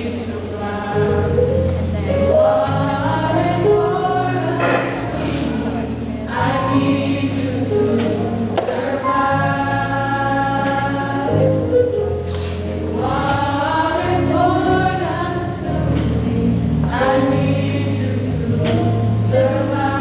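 A high-school choir singing together in long held chords that swell and glide between notes, with low notes sustained underneath.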